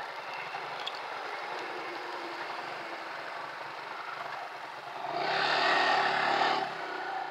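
Yamaha FZ150i motorcycle moving at low speed, with a steady rush of wind and road noise. About five seconds in, an engine note grows louder for nearly two seconds, then falls away.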